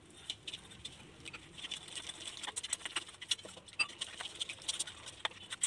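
Thick gram-flour batter being stirred in a steel bowl: irregular light clicks and soft slaps of the utensil working the wet paste.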